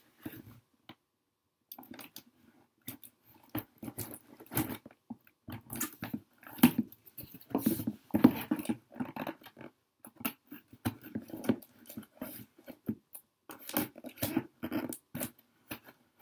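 Utility knife slicing and scraping through packing tape on a cardboard box, in short irregular strokes with a brief pause near the start.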